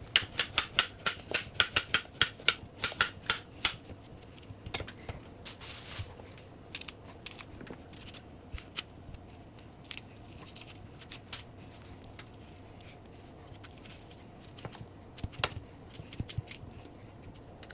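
Knife chopping plantain on a cutting board: a quick run of sharp knocks, about four a second, for the first few seconds, then slower, scattered single cuts.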